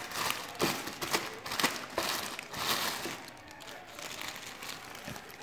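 Crisp, irregular crunching of krupuk crackers being chewed, about two crunches a second, fading after about three seconds.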